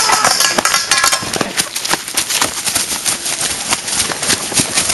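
A group of people running, their many quick footsteps beating on a dirt path, loudest in the first second or so.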